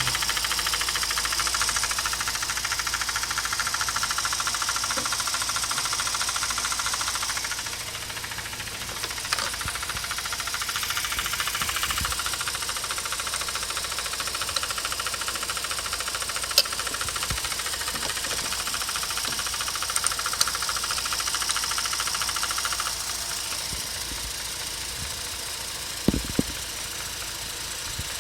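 Mazda RX8 231 bhp Renesis rotary engine running with a steady, fast knocking rattle. The owner traces the rattle to the secondary shutter valve (SSV) actuator link, which still knocks after the valve was removed and cleaned.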